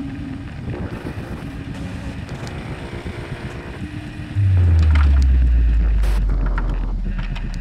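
Glitchy sound design for a film studio's logo reveal: a rough, crackling static-like noise, then about four seconds in a sudden loud deep bass hit that drops in pitch and slowly fades, with a few short glitch clicks near the end.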